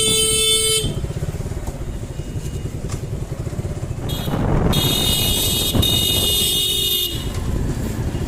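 A motorcycle's electric horn sounds twice over a Suzuki Gixxer's idling engine. A blast ends under a second in, and a second blast of about two and a half seconds comes just past halfway.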